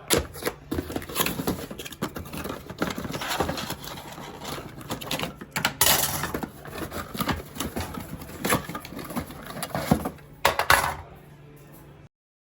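Irregular clattering, knocking and rustling of small hard objects being handled, with a faint low hum underneath; it cuts off suddenly near the end.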